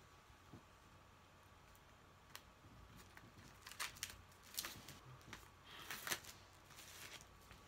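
Faint rustling and clicking of cardboard and paper packaging being handled while a CD box set is packed back together, with a few sharper clicks in the second half.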